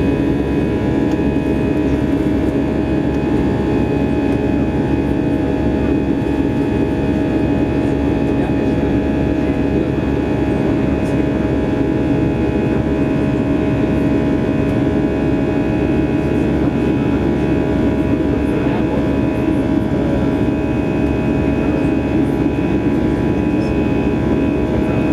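Airbus A320 cabin noise during the climb after take-off: a steady jet-engine drone and airflow rush with several steady humming tones, heard from inside the cabin next to the engine.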